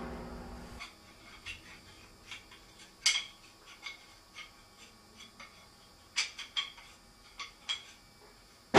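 Drum kit ringing out after a loud hit and dying away over the first second, then about a dozen light, scattered clicks and taps of drumsticks, a few bunched together past the middle, before a loud drum hit right at the end.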